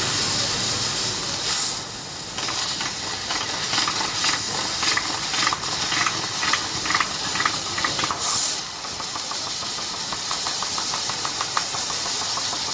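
CNC laser cutting machine at work: a steady hiss of assist gas, with two louder gas blasts, one about a second and a half in and one about eight seconds in. Short ticks run through the middle, turning into fast, even ticking near the end.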